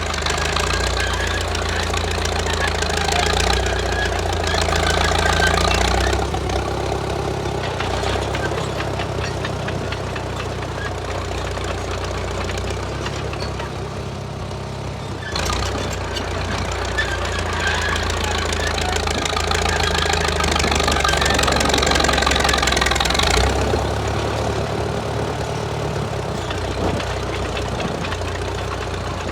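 1934 Caterpillar crawler bulldozer's engine running under load while pushing rock, working harder in two long stretches, the first at the start and the second from about halfway through, and easing off between them.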